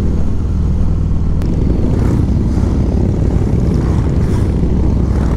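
Harley-Davidson V-twin motorcycle engines running at a standstill, a loud, steady low rumble.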